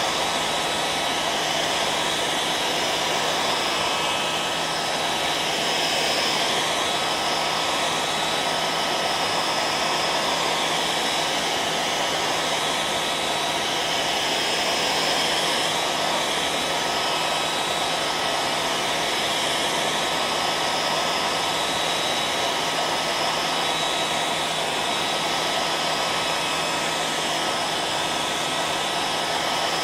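Electric hair dryer running steadily: an even rush of blown air with a steady motor hum underneath.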